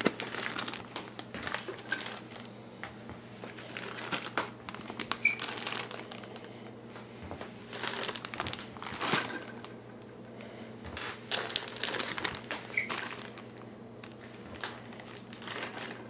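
Plastic zip-top bags full of morel mushrooms crinkling and rustling as they are handled and packed into a stainless steel bowl, in irregular bouts every second or two, over a low steady hum.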